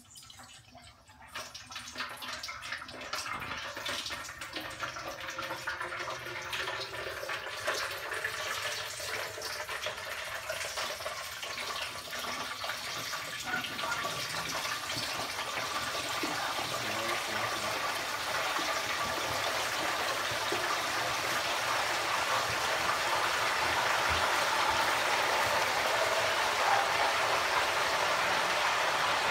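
Hot oil in a propane turkey fryer pot bubbling and crackling as a whole turkey is lowered slowly into it, growing steadily louder into a vigorous boil.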